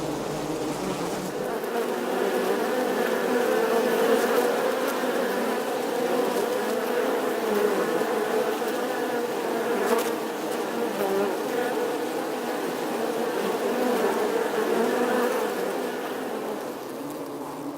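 Many bees at a beehive buzzing together in a dense, steady hum that swells and eases, fading a little near the end. A faint click comes about ten seconds in.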